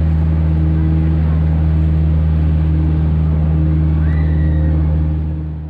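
A vehicle's motor running with a steady low drone, fading away near the end.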